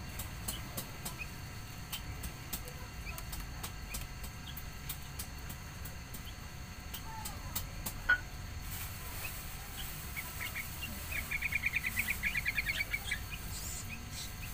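A small bird gives a quick chattering run of short high notes, about ten a second for some two seconds, late on, after scattered faint clicks and one sharper tap.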